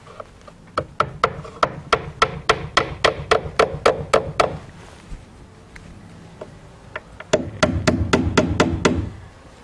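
Claw hammer driving a nail into a wooden tongue-and-groove soffit board overhead: a quick run of light blows, about four or five a second, for some three and a half seconds, a pause, then a second quick run of blows near the end.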